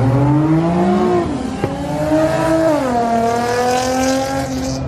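High-performance car engine accelerating hard past the crowd, its note climbing and dropping sharply at two upshifts. There is a single sharp pop about a second and a half in.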